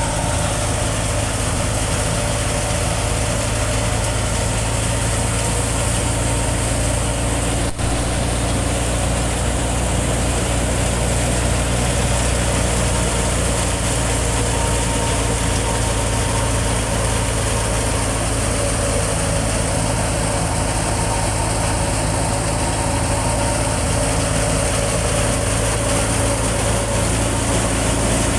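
Belt-driven wheat thresher running steadily during threshing, a continuous mechanical drone with a constant low hum.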